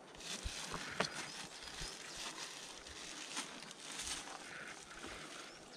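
Footsteps and rustling over rough, dry ground, with a sharp knock about a second in and faint bird chirps in the background.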